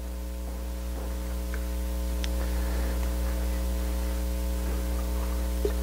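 A steady low electrical hum with a buzzy row of overtones, mains hum in the sound system, with a couple of faint ticks about two seconds in.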